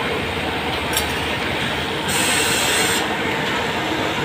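Pegasus W600PC flatlock (coverstitch) sewing machine running steadily while hemming the bottom of a T-shirt, against steady workshop machine noise. There is a click about a second in and a brief hiss about two seconds in that lasts about a second.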